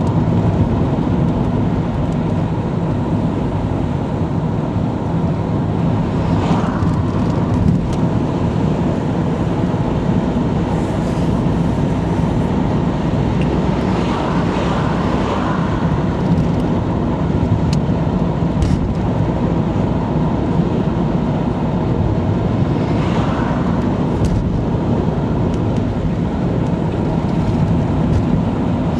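Steady engine and tyre noise of a car driving along a road. Oncoming traffic swells briefly a few times as it passes, most clearly about halfway through.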